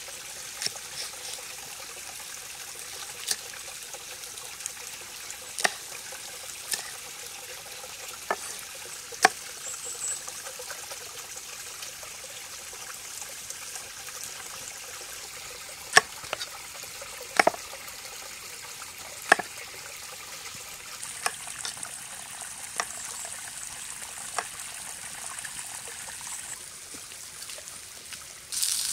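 A shallow stream trickling steadily, with scattered sharp taps of a knife on a wooden chopping block as chili peppers are cut. Just before the end a louder hiss comes in suddenly.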